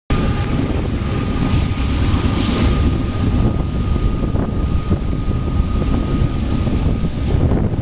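Wind buffeting the microphone: a loud, uneven low rumble, with a faint steady whine that fades near the end.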